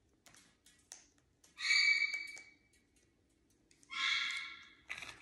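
African grey parrot giving two short calls, each about a second long and held at a steady pitch, with faint light clicks between them.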